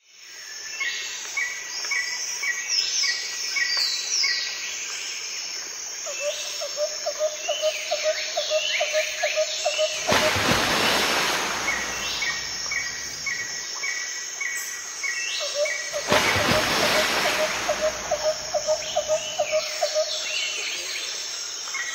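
Birds chirping in quick repeated series, with a fast trill heard in two stretches. A rushing noise swells and fades twice, about halfway through and again later. It is a nature soundscape used as the background track.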